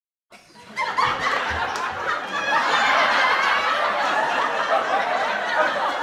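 Several young people laughing and chattering together, coming in about a second in after a short dropout.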